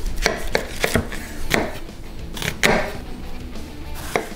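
Chef's knife dicing a white onion on a wooden cutting board: a run of sharp, irregularly spaced knocks as the blade cuts through and strikes the board.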